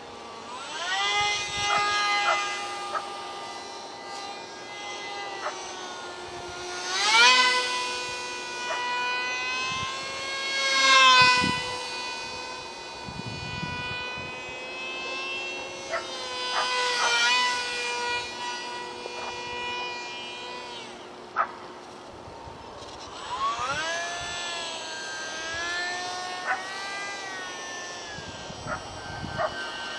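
Whine of the small electric motor and propeller of an ultra-micro RC flying wing in flight. Its pitch rises and falls with the throttle. It is loudest about 7 and 11 seconds in, and briefly drops away a little past 20 seconds before climbing again.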